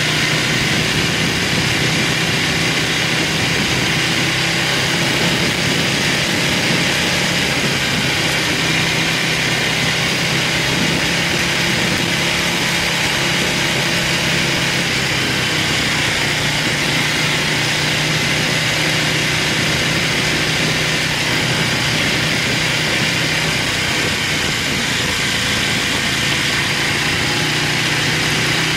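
Buell motorcycle engine running steadily under way on a winding road, its pitch shifting a little now and then, mixed with a steady rush of wind and road noise on the external microphone.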